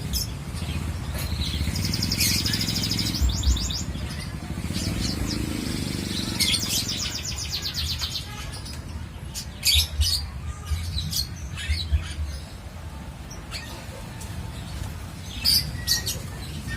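Caged birds chirping, with short high calls throughout and rapid trills a couple of seconds in and again about six seconds in, over a steady low rumble.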